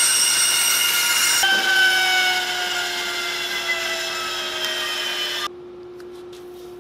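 Band saw running as it cuts a thin plate. About a second and a half in, its pitch starts falling slowly as the blade coasts down. About five and a half seconds in, the saw noise stops suddenly, leaving faint rubbing and clicks of masking tape being handled.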